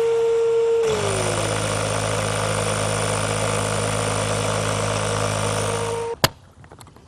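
Electric inflation pump running as it inflates a catamaran pontoon toward its working pressure. About a second in, its pitch drops and a rushing air noise grows over a low hum. It cuts off suddenly near the end, followed by a single sharp click.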